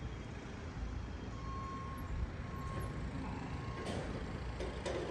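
Construction-site background noise: a steady low rumble of engines or traffic, with a faint held tone in the middle and a couple of short knocks near the end.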